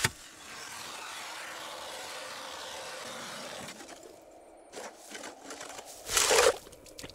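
Mora hand ice auger cutting into lake ice as its crank is turned, a steady scraping grind of the blades against ice. The grinding drops off a little before halfway, and a short, louder burst of noise comes about six seconds in.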